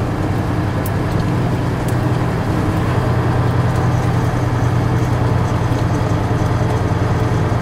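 Semi truck's diesel engine running as the truck crawls along, a steady low drone heard inside the cab.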